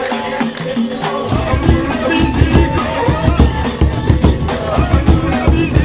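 Amazigh Ahwach music: a group of large frame drums starts beating together about a second in, a dense, loud rhythm with voices above it.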